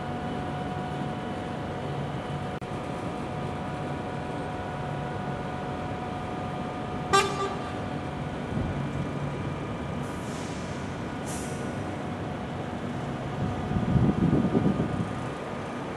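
Steady hum of a moving road or rail vehicle heard from inside, with a brief sharp pitched sound about seven seconds in, two short hisses around ten and eleven seconds, and a louder rumbling swell near the end.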